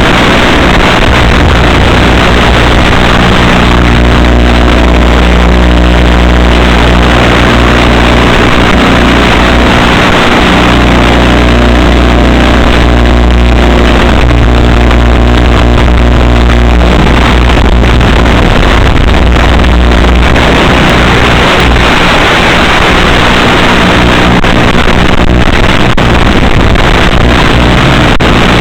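Electric motor and propeller of an FPV flying wing running steadily at cruise, a constant buzz with overtones, under heavy low wind rumble that rises and falls.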